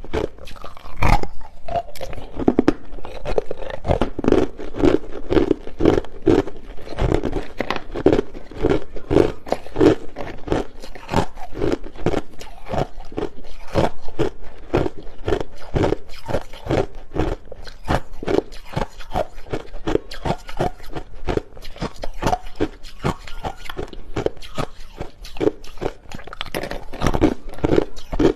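Hard, clear crushed ice being bitten and chewed close up, a rapid run of sharp crunches, several a second without a break.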